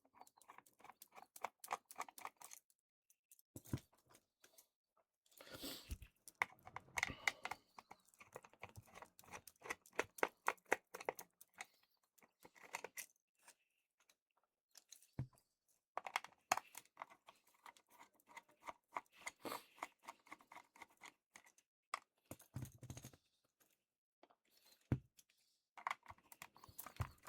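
Small screwdriver turning screws out of a plastic headphone earcup: bursts of fast, dense clicking and scraping with short pauses between, and a few soft knocks.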